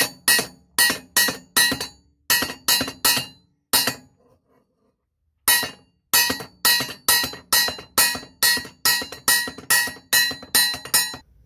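Small toffee hammer tapping a narrowboat propeller blade backed by a lump hammer held behind it, knocking a ding out of the blade: sharp ringing metal taps about three a second. They stop for about a second and a half around four seconds in, then resume in a quicker, even run.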